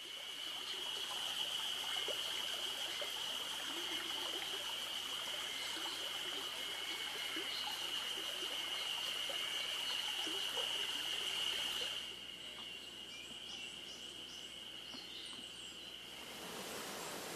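Steady trickling water noise from an aquarium, with a constant high whine over it. The sound drops in level abruptly about twelve seconds in and changes again near the end, at cuts between shots.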